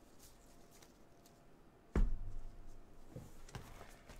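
Quiet room tone, then a single sharp thump about two seconds in and a couple of lighter knocks after it: cards and packs being handled and set down on a tabletop.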